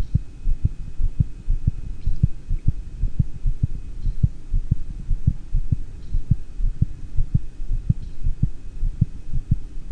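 Normal dog heart sounds recorded at the heart base: a steady lub-dub rhythm of the first and second heart sounds (S1 and S2), with the second sound a little louder. A low steady hum runs under them.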